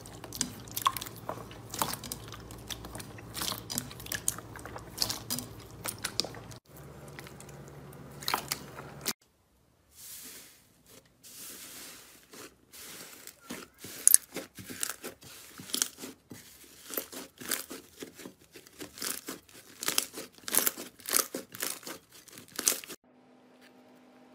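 Hands squishing and stretching slime, first a glossy purple glitter slime and then a thick green fluffy slime, each giving quick irregular runs of sharp sticky clicks and crackles. There is a short break about nine seconds in. Near the end the clicking stops and a faint steady hum is left.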